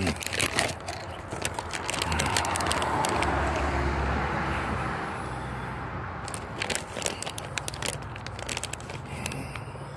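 A road vehicle passing on the street: a broad rush of noise that swells a couple of seconds in and fades away over a few seconds. Sharp clicks and crackles come near the start and again later, over a faint low hum.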